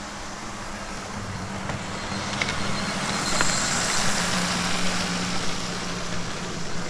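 00 gauge model diesel locomotive running along the track, its small electric motor giving a steady low hum. It grows louder around the middle as it passes close by, with a few light clicks.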